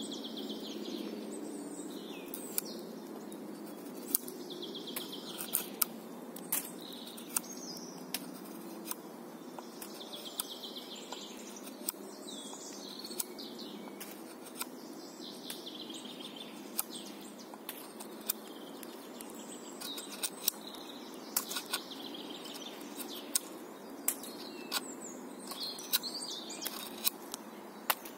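Sharp clicks, irregular and a second or more apart, of a scandi-ground puukko knife biting into and shaving a birch branch. A songbird sings short repeated phrases every few seconds in the background.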